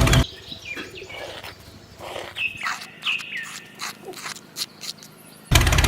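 A handful of short, high bird chirps, each falling in pitch, with a few light clicks, during a quiet stretch. A loud steady motor-like hum stops just after the start and comes back near the end.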